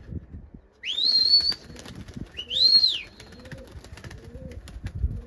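Two loud human whistles, each rising and then falling in pitch, the first about a second in and the second shorter, blown by a pigeon fancier to the Adana pigeons he is flying. Faint repeated pigeon coos run underneath.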